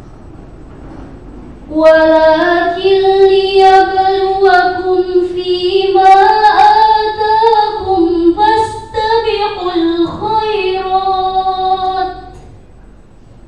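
A teenage girl reciting the Quran in murattal style, a measured melodic chant: one long phrase of about ten seconds, starting about two seconds in after a pause for breath.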